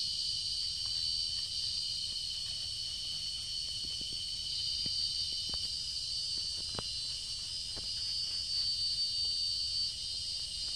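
Steady high-pitched insect chorus buzzing without a break, with a few faint ticks scattered through it.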